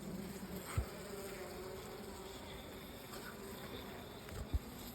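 Honeybees buzzing steadily around an opened hive: a low, even hum with a faint wavering higher drone. There are a couple of brief soft bumps, about a second in and near the end.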